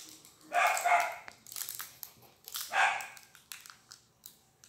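A dog barking: two quick barks about half a second in and another bark near three seconds. Light crinkling and clicks from handling the candle's plastic wrapper follow in the quieter stretch.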